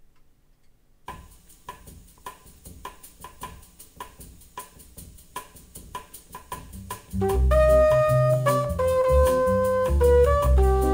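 A jazz bossa nova recording played back through JBL K2 S5500 loudspeakers in a room. After a second of quiet, soft percussion taps a steady pattern of about two strokes a second. About seven seconds in, bass and horns come in loud with held notes.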